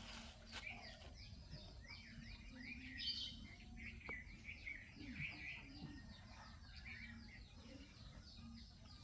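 Many small birds chirping at once, a continuous faint chatter of short, quick chirps.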